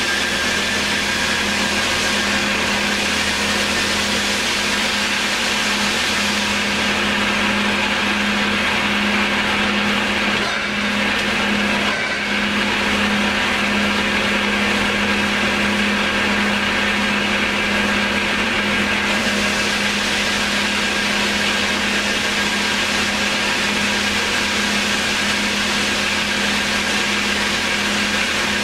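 Baileigh PL-1022VS variable-speed bench-top metal lathe running, with a steady motor and gear hum and a thin, steady whine. Its spindle is turned up to about 970 rpm on the speed readout.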